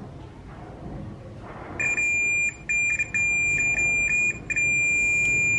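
Digital multimeter in continuity mode beeping as its probes touch the two pins of a CFL tube's filament. The high, steady tone starts about two seconds in, breaks off and restarts several times as the probe contact flickers, then holds steady. The beep shows the filament has continuity and is intact.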